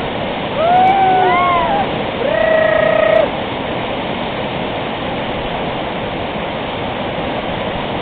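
Fast whitewater rapids rushing steadily. A person calls out twice in the first three seconds, the second a long call held on one note.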